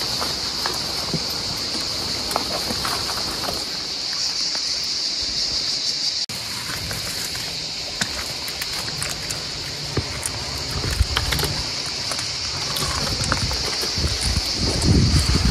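Cicadas singing in a steady, high-pitched chorus.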